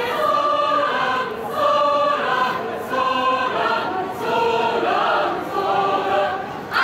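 A choir of high-school brass band members singing together, holding notes that change every half second or so.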